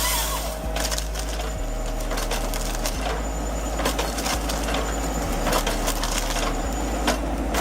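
A tractor-mounted Arbro 1000 tree-cutting head running as it cuts through a tree, with a steady machine hum under crackling and splintering wood.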